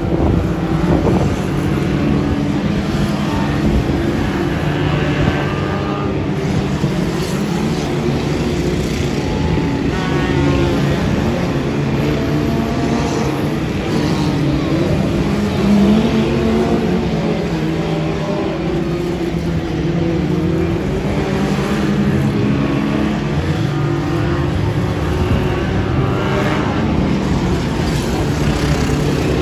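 Several Reliant Robin three-wheeler banger cars racing, their small four-cylinder engines revving up and down at different pitches as they lap. The sound gets briefly louder about halfway through.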